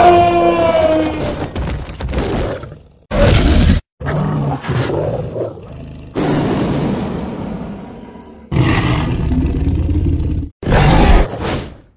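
Dubbed creature roars and growls, about six in a row with short gaps between them, the first one sliding down in pitch.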